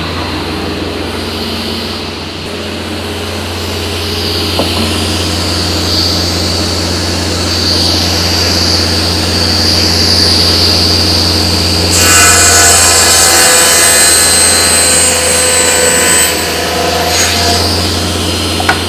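Sliding-table circular saw running with a steady hum and whine, its blade spinning freely; from about twelve seconds in it gets louder and harsher as the blade cuts through a square wooden fence pole, then stops sharply near the end.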